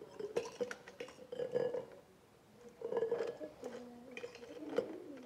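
Light clicks, clinks and knocks of hands handling a stainless-steel YETI tumbler, in two short clusters with a brief pause between them.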